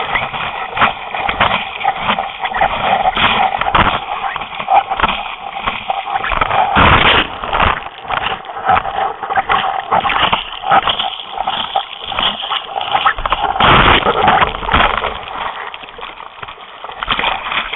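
Seawater splashing and sloshing over a surf race board and its nose-mounted camera as the paddler strokes through breaking surf. The splashes are short and repeated, coming with each arm stroke.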